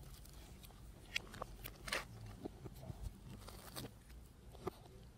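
Faint crunching and chewing as a McDonald's apple pie's pastry crust is bitten and eaten, heard as scattered small crackles.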